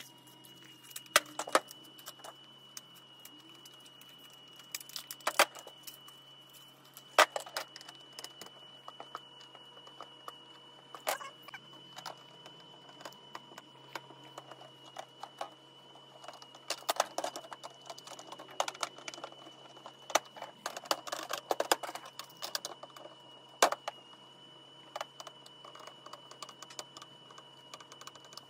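C batteries being handled and a small screwdriver worked into a Nerf Rival Charger's battery door: scattered clicks, taps and clinks of plastic and metal, with bursts of rattling. A faint steady high tone runs underneath.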